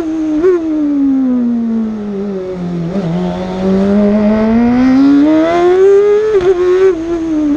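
Osella PA21 JRB race car's BMW engine heard on board at racing revs. The revs fall for about two and a half seconds, with a quick blip about half a second in, then climb steadily for about three seconds under acceleration and drop off again near the end.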